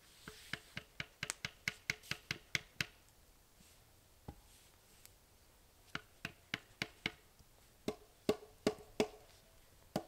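Hand tools striking wood: a hatchet and a stick baton driving a knife into logs, giving quick runs of sharp wooden knocks, about four or five a second, in three bursts with short pauses between.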